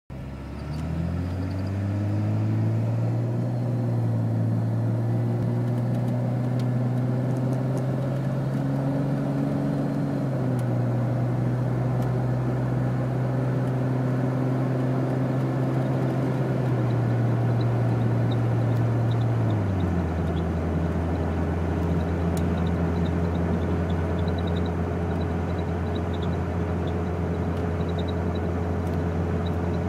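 Jeep Cherokee making an unidentified low droning hum with overtones, the owner's "weird noise". Its pitch rises about a second in, steps up and down a few times, then drops to a lower steady drone about twenty seconds in.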